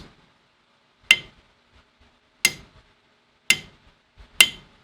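A hammer tapping a metal tube down into its hole: four separate metallic taps about a second apart, each with a short ring, the last the loudest.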